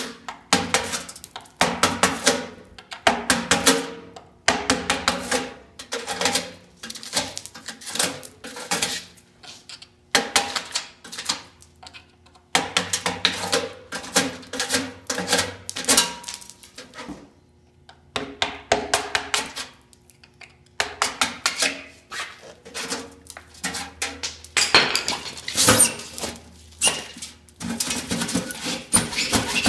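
Sheet-metal mailbox box clanking and scraping as it is pried at with a flat metal bar. The sound comes in irregular bursts of quick knocks with short pauses between.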